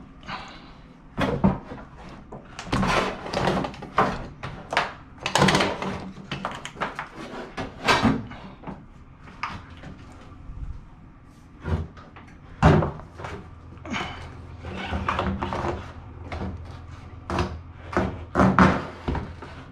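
Irregular knocks, thuds and clatter of a drum-type washer-dryer's panels and parts being handled and pried apart during disassembly, the loudest knock about twelve seconds in.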